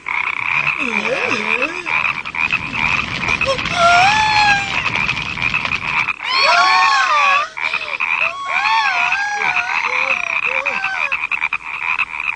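A dense chorus of frogs croaking, steady and loud, as in a plague of frogs. Several high calls that rise and fall stand out over it about a third of the way in and again past the middle.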